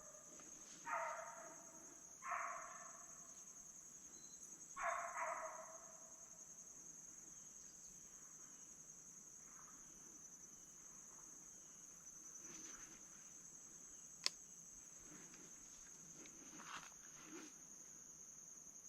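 Hunting hounds baying, three long bays in the first six seconds, each slightly falling in pitch, over a steady high trill of crickets. A single sharp click comes about two-thirds of the way through.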